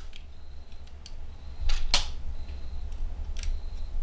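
Small clicks and taps of screws and a plastic fan being handled and fitted into a 3D printer's plastic fan shroud, about four light ticks with the loudest about two seconds in.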